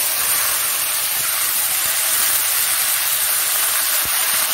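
Freshly added steamed water spinach sizzling in hot refined oil in a kadai: a loud, steady hiss of wet greens meeting the oil.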